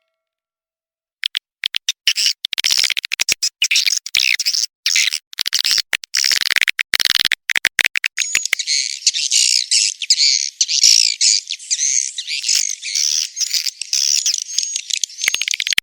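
Edible-nest swiftlet lure call: a dense, high twittering and chirping of many swiftlets, starting about a second in, choppy with short gaps at first and near-continuous from about halfway.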